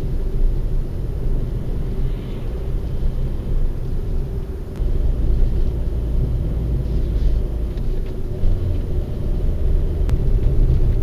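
A car driving on a country road, heard from inside the cabin: a steady low rumble of tyres and engine, with a faint click or two.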